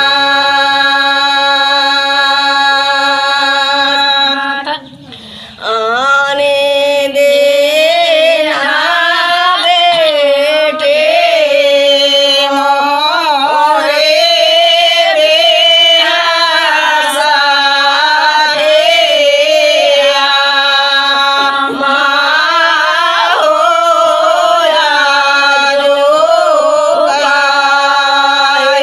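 Women singing a Bagheli wedding folk song (vivah geet) together in full voice. One long held note opens it, there is a brief break about five seconds in, then the melody carries on in wavering, ornamented lines.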